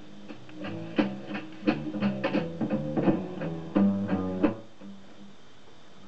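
A 7-inch single playing on a vintage Marconiphone autochanger record player, its music coming through the player's own speaker: a tune of crisply struck notes that starts just after the record begins, with a brief lull near the end.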